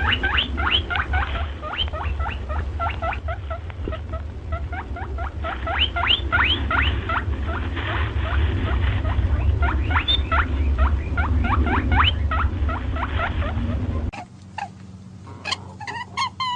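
Many quick, high squeaks from small animals, each sweeping upward in pitch, in a rapid run over a low rumble. About fourteen seconds in the sound cuts to a different animal giving a row of short repeated chirps.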